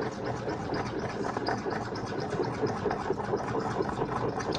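Slime mixture being stirred and squished in a container: a continuous run of small sticky clicks and scrapes.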